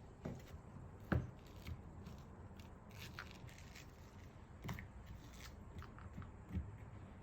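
Kitchen food-prep handling sounds: faint, scattered knocks, clicks and scrapes of utensils and pumpkin pieces, the sharpest about a second in.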